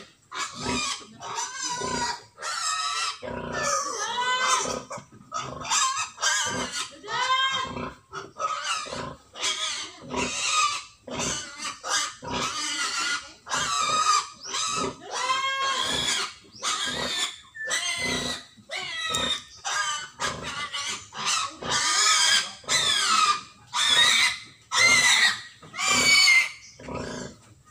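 Pig squealing and grunting in short calls, one after another at about one or two a second, some rising and falling in pitch.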